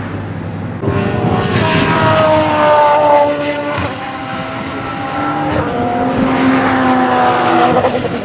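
Open-cockpit sports-prototype race car's engine running hard on a circuit. It gets suddenly louder about a second in, falls in pitch over the next few seconds, then rises again as the car pulls away.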